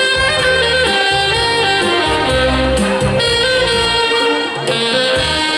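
Saxophone ensemble playing a Hakka folk melody together, with a low bass line moving underneath.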